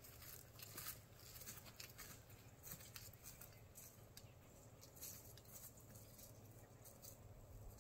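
Near silence: faint outdoor ambience with scattered light rustles and small ticks.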